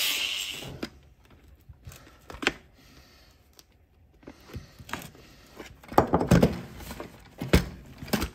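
An angle grinder spinning down in the first second, then scattered knocks and clicks of a hard plastic ski boot being handled and pried at with a small tool to free the heel piece from its cut pivot rivets. The loudest knocks come in a cluster a little after six seconds and once sharply about a second later.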